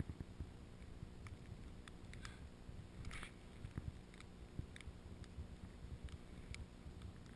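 Faint, muffled low rumble with scattered light clicks and taps, from a camera carried by a skier moving through powder snow. A brief hiss comes about three seconds in.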